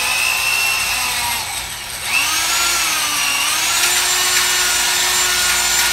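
Corded electric drill spinning a wire wheel brush against ceramic tile and grout, scrubbing off paint softened by chemical stripper. The motor whine shifts in pitch under load, eases off briefly about two seconds in, then picks straight back up.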